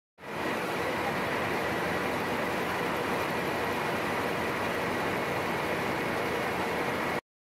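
A textile machine running steadily: an even, dense mechanical noise with a faint high whine running through it.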